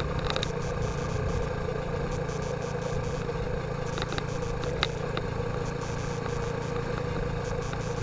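Motorcycle engine running steadily while riding at moderate town speed, with road and wind noise. A few sharp ticks cut through, the loudest nearly five seconds in.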